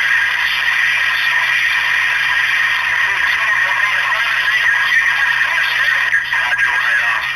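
CB radio receiver hissing with band-limited static through its speaker, with garbled voices faintly in the noise.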